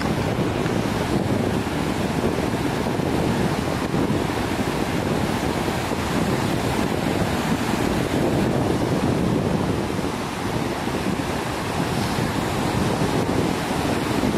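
Fast mountain river rushing over boulders in whitewater rapids, a steady unbroken noise, with some wind on the microphone.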